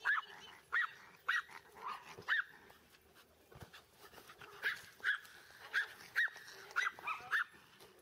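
Dog barking in short, high-pitched yaps, one or two a second, in two runs with a pause of about two seconds in the middle.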